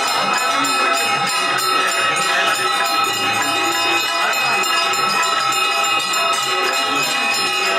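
Many bells ringing continuously together, a steady jangle of ringing tones, over devotional music.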